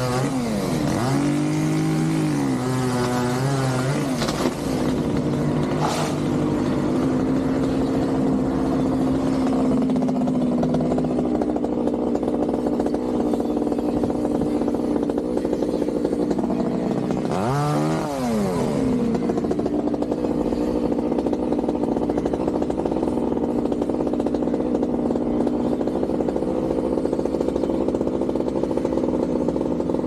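Skylift truck's engine running steadily, its speed dipping sharply and picking up again twice, at the start and about eighteen seconds in.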